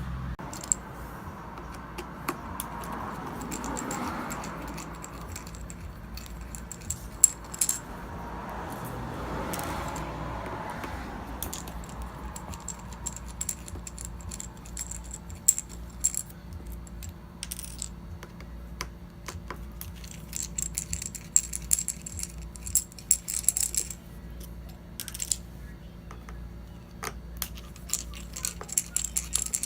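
Small steel screws clicking and clinking as a T8 Torx screwdriver backs them out of an iMac's front bezel and they are handled and set down, with scattered sharp ticks that grow busier in the second half, over a steady low hum.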